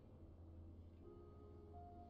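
Faint, soft soundtrack music, with held notes coming in about a second in over a low steady hum.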